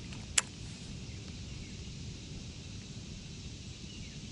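Quiet lakeside outdoor ambience: a steady low rumble under a faint high hiss, with one sharp click about half a second in and a few faint chirps near the end.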